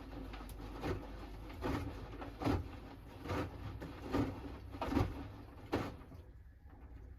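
Hoover Axi 10kg front-loading washing machine tumbling its load early in the wash: a soft thud about every 0.8 s as the laundry drops in the turning drum, over a steady low hum. The drum stops about six seconds in.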